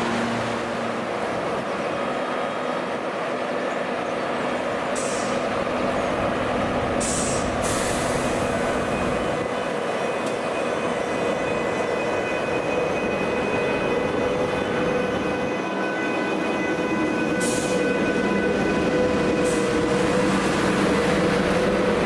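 Trains at a station platform: a steady rumble with a whine that comes in partway through and grows louder near the end, broken by four short hisses of air.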